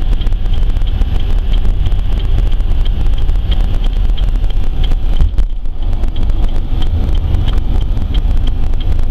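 A van driving on the road: a steady, loud low rumble of engine and road noise.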